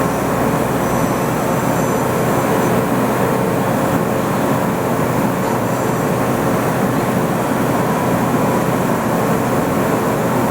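Nakamura WTS-150 CNC turning center running: a loud, steady mechanical whir with a constant hum and a faint high-pitched whine held throughout.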